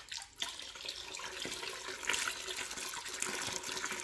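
Coolant pouring and splashing out of a removed BMW B58 stock heat exchanger into a drain bucket, starting about half a second in and running on steadily.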